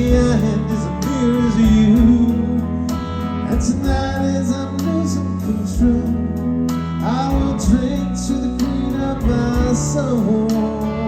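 Live band playing an instrumental passage of a country-rock song: guitars with notes bending in pitch over a steady bass and a drum beat kept on the hi-hat.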